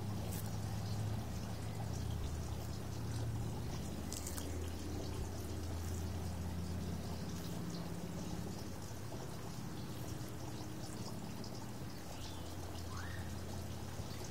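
A tortoise biting and chewing a lettuce leaf, heard as faint, irregular crisp crunches over a steady low hum.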